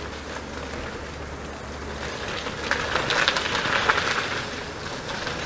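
ODYS NEO E100 electric scooter's tyres rolling over a rough path patched with coarse fresh gravel: a steady rolling rumble with fine crackling of grit under the tyres, the crackle thickening about three seconds in.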